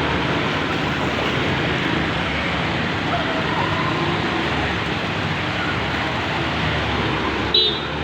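Busy street ambience: steady traffic noise with indistinct voices, and a short high-pitched sound near the end.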